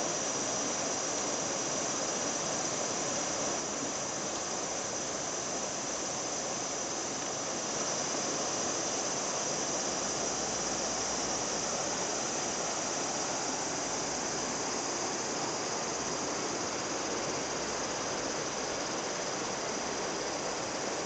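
Mountain river rushing below a bridge: a steady, unbroken hiss of flowing water.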